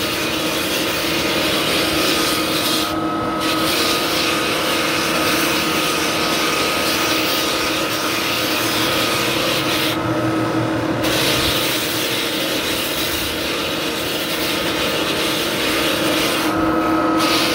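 Drum floor sander with 24-grit paper running over warped mahogany deck boards, a steady motor whine under the rough grinding of the drum on the wood. The grinding thins out briefly three times, about 3, 10 and 17 seconds in.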